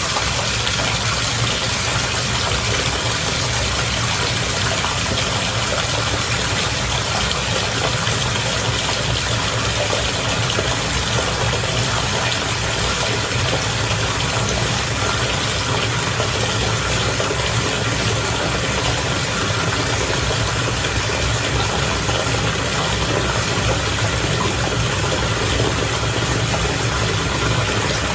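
Bath water bubbling, a constant churning hiss over a low rumble.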